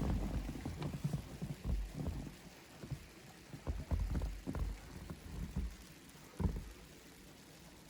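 Footsteps crunching through fresh powdery snow, an irregular series of soft crunches that thin out after the first few seconds, with one firmer step about six and a half seconds in.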